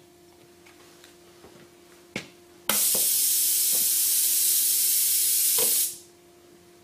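Compressed air hissing at the air-driven EFCO TSV-150 safety-valve lapping machine: a single sharp click, then a loud steady hiss that starts abruptly about two and a half seconds in and cuts off about three seconds later.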